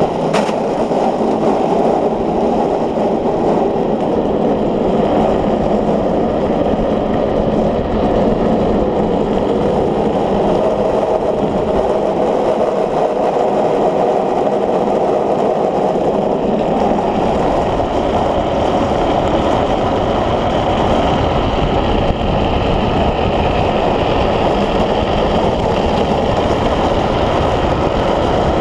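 Steady wind noise on an onboard microphone mixed with the rolling noise of a speed trike's wheels on asphalt during a fast downhill descent, with a single sharp click right at the start.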